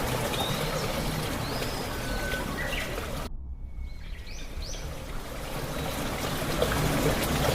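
Running water from a stream, with a few short bird chirps over it. About three seconds in, the sound cuts abruptly to a duller, quieter background, and more bird chirps follow shortly after.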